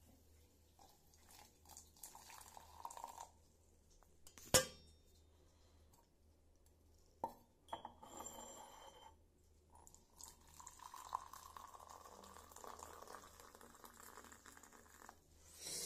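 Faint handling of a steel tumbler and dishes, with light clinks and one sharp metal clink about four and a half seconds in, then several seconds of water pouring from a bucket and dipper.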